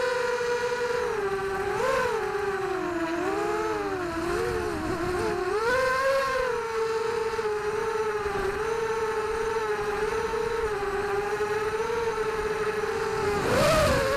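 Vortex Pro 250 FPV racing quadcopter's brushless motors and propellers whining, heard from its onboard camera; the pitch rises and falls with the throttle, with a brief louder surge near the end.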